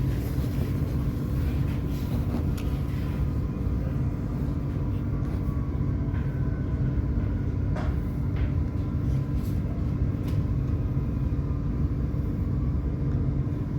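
Inside a moving passenger train: a steady low rumble of the running gear on the rails, with a constant hum and a few faint ticks and squeaks.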